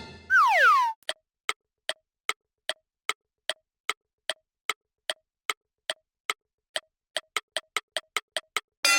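Cartoon sound effects: a short falling whistle, then a steady clock-like ticking, about two and a half ticks a second, that speeds up over the last two seconds. A bright sustained chord starts right at the end.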